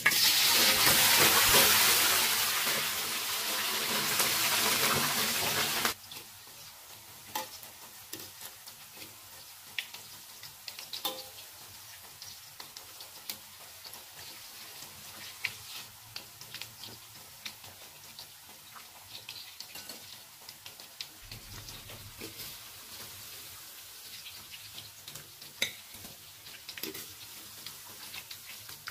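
Small peeled potatoes going into hot oil in a wok: a loud hissing sizzle for about six seconds that cuts off suddenly, then a quieter steady crackle of deep-frying with scattered clicks of a wire spider strainer against the wok.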